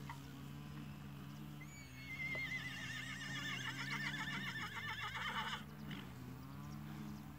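A horse whinnying once, about two seconds in: a high call that wavers and shakes rapidly for about four seconds, then cuts off.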